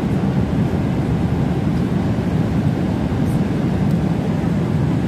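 Steady low rumble of jet airliner cabin noise, with no break or change.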